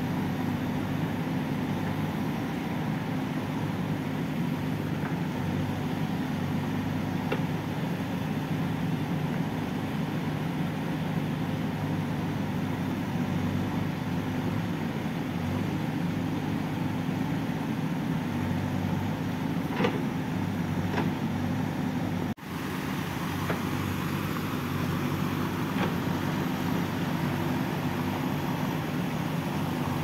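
JCB backhoe loader's diesel engine running steadily while it works, with a few faint knocks. The sound drops out for a moment about two-thirds of the way through, then carries on.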